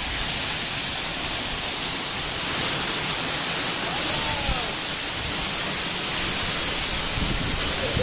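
A waterfall over 20 metres high making a steady rushing noise of falling water, close by and loud.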